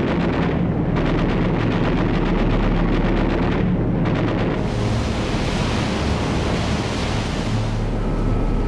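A steady low rumble under a rushing, hissing noise that swells about halfway through and eases near the end, in the manner of sea and distant explosions laid under wartime footage.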